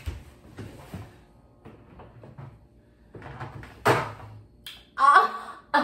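Light knocks and clatter of things being handled at a kitchen refrigerator, its door and shelves, with one sharper knock about four seconds in.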